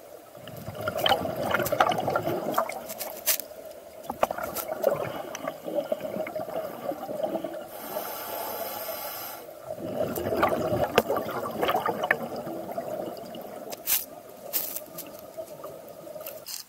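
Scuba regulator breathing heard underwater: long bursts of exhaled bubbles rumbling and gurgling, three times, with a short hiss of inhalation between the second and third.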